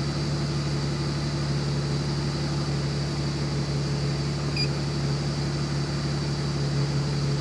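2002 BMW 330Ci's inline-six engine running at a steady idle, even and without misfire now that its vacuum leaks are fixed.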